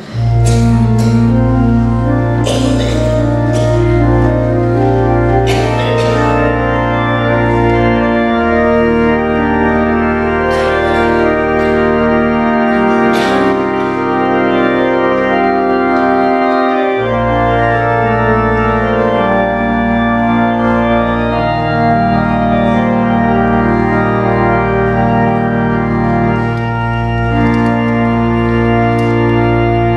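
Church organ playing held chords over a deep pedal bass. The bass thins out for several seconds in the middle and returns, and the playing stops near the end.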